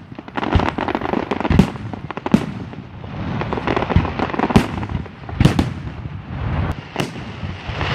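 Aerial fireworks shells bursting in quick, irregular succession, a loud bang every second or so with many smaller cracks between them.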